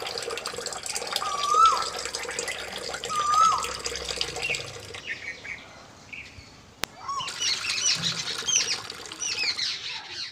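Birds calling: a short whistled call that rises and then dips, repeated about every second and a half, then quick high chirps from about seven seconds in. A thin trickle of water runs underneath, and there is one sharp click about seven seconds in.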